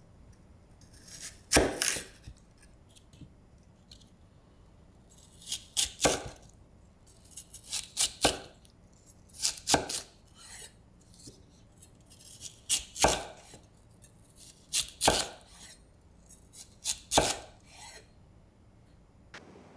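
Knife cutting food on a cutting board, in short groups of sharp chops about every two seconds with pauses between.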